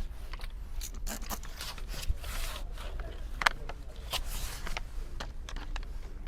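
Irregular rustling, scraping and clicking handling noise, with one sharper click about three and a half seconds in.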